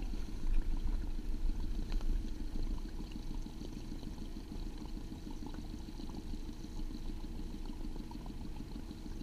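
Small Honda four-stroke outboard running steadily at low trolling speed, with water splashing around the stern.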